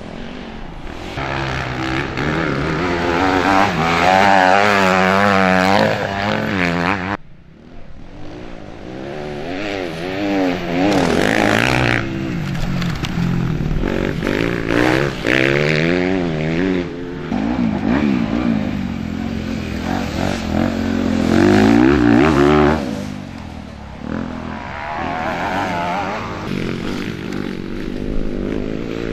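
Motocross bikes' engines revving hard, the pitch swinging up and down again and again with throttle and gear changes as they race past. The sound drops away briefly about a quarter of the way in.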